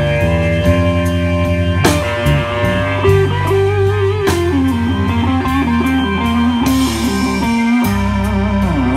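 A live blues band plays with no singing. A Fender Stratocaster electric guitar plays lead lines whose notes bend and waver, over a steady bass line and drums with cymbal strokes.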